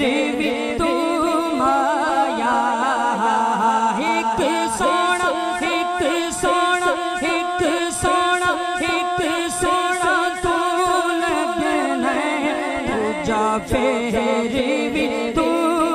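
Male naat reciter singing a Punjabi naat unaccompanied through a PA microphone, in long wavering held notes. From about four seconds in until near the end, a steady sharp beat, about two to three strokes a second, runs under the voice.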